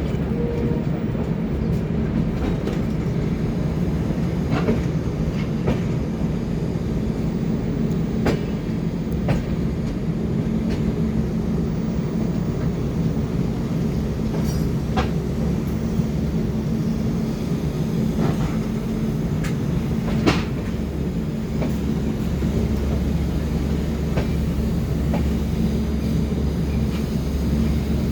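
A moving train running on the track: a steady low rumble with scattered sharp clicks and knocks from the wheels and carriages.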